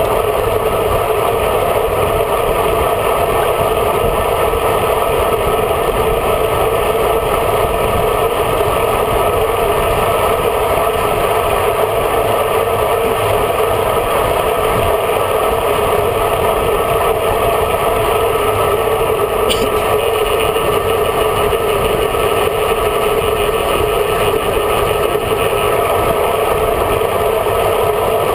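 Steady rush of wind and tyre noise on a bike-mounted camera riding at speed in a road-cycling group, with one short click about twenty seconds in.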